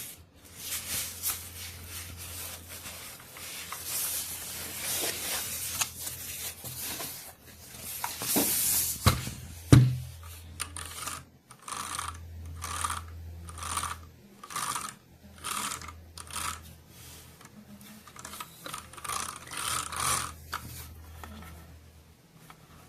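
Packaging being handled: rubbing and rustling, a single loud knock about ten seconds in, then a run of short, evenly repeated rubbing strokes, over a low steady hum.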